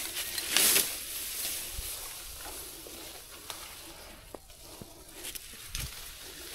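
Tall grass and undergrowth rustling as someone moves through it on foot, with a louder brush of leaves about half a second in and a few light ticks and snaps after.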